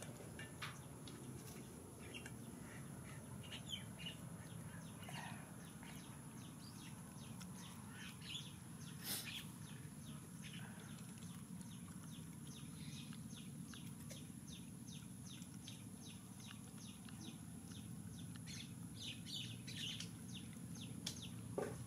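Faint outdoor ambience: scattered high chirps and many small clicks over a low steady hum, with one sharper click about nine seconds in.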